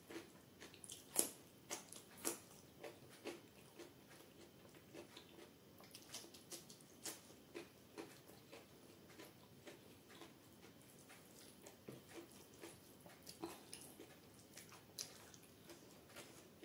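Close-up wet eating sounds: irregular soft smacks and clicks of chewing and of fingers squishing rice and chana dal on the plate, the loudest about a second in.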